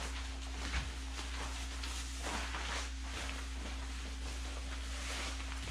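Soft rustling of a Nike Off-White Mercurial NRG trench coat's fabric as the wearer moves in it and adjusts the hood, a few brief swishes over a steady low hum.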